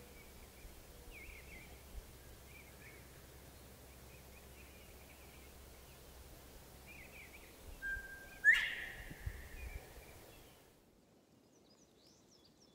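Faint, high bird chirps and twitters repeating over low outdoor background noise, with a sudden sharp, much louder sound about eight and a half seconds in. The sound drops to near silence about two seconds before the end.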